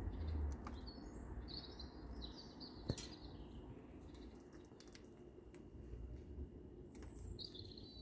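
Faint chirping of small birds: runs of short, high chirps in the first few seconds and again near the end. A low rumble fades out in the first half second, and a single sharp click comes about three seconds in.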